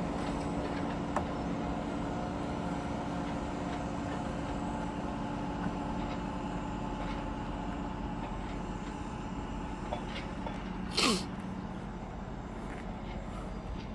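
Honeybees buzzing in a steady hum over an opened hive. About eleven seconds in, one bee flies close past with a brief, louder buzz that falls in pitch.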